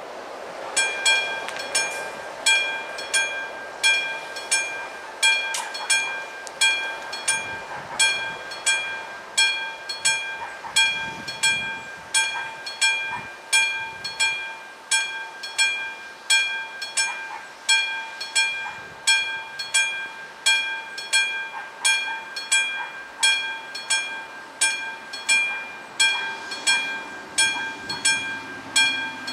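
Level-crossing warning bell, the classic bell of an AŽD 71 crossing signal, starts about a second in and rings in an even rhythm of clear metallic strokes, the warning that a train is approaching.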